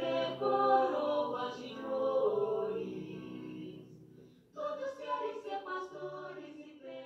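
Music with voices singing together over a low held note. It fades out about four seconds in, and singing starts again abruptly about half a second later.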